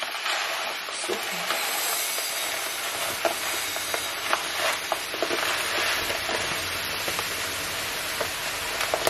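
Dry basmati rice poured from a plastic bag into a glass storage jar: a steady hiss of grains streaming in, starting just after the bag is tipped.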